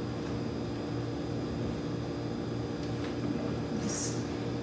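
Steady electrical hum of the kitchen, with faint scrapes of a wooden spoon folding thick batter in a mixing bowl, a little more audible about three and four seconds in.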